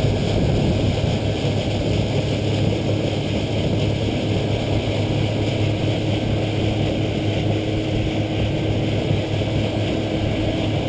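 Boat's outboard motor running steadily at speed, a low drone mixed with the rush of water and wind as the boat moves.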